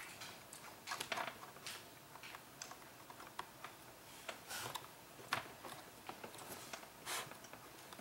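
Faint, scattered small clicks and scrapes of fingers working a DDR3 laptop RAM stick into its memory slot on the laptop's circuit board.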